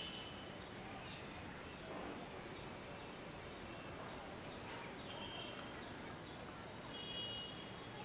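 Wild birds calling over a steady background hiss: brief steady whistles and quick high chirps every second or two, two whistles close together near the end.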